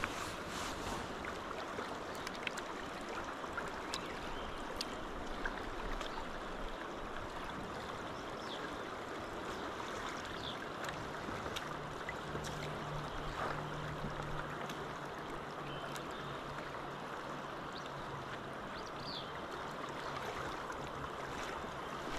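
River current flowing and rippling past a gravel bank: a steady rush of water. Faint scattered ticks run through it, and a faint low hum comes in for several seconds in the middle.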